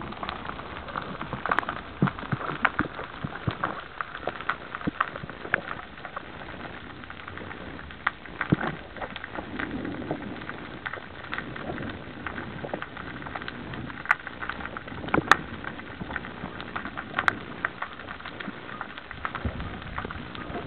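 Underwater ambience picked up by a camera on a speargun: a steady hiss scattered with irregular sharp clicks and crackles.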